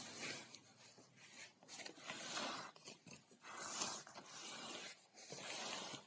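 Book parcel packaging being handled and torn open: about five irregular bursts of rustling and ripping.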